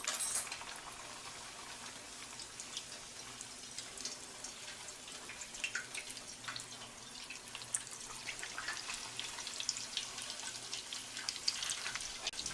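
Chimichangas frying in hot oil: a steady sizzle with scattered crackles and pops, loudest in a burst just as they go into the oil.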